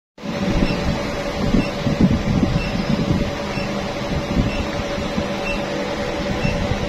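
M-Triangel MT-102 screen-laminating press running through a pressing cycle on a phone display: a steady mechanical hum with an uneven low rumble and a faint short high tick about once a second.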